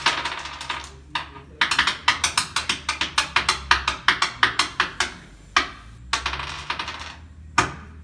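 Small plastic linking cubes clicking and clattering on a wooden tabletop: a quick run of sharp clicks, about four or five a second, for a few seconds, with looser rattling before and after and one last sharp click near the end.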